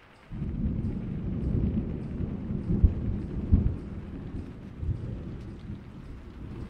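Thunderstorm: low rolling thunder over steady rain, with a couple of louder claps about three seconds in.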